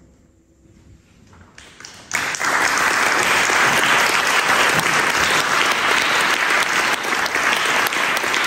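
A short hush, then audience applause breaks out about two seconds in and goes on steadily.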